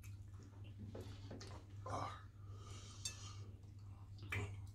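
Faint mouth sounds of eating spicy pepper soup and fish by hand: soft smacks and clicks, a louder breathy sound about two seconds in, then a short hissing breath, over a steady low hum.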